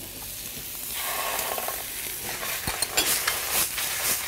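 Apple frying in chili oil in a hot pan: a sizzle that swells about a second in as passion fruit goes into the pan, then clinks and scrapes as the pan is stirred and tossed.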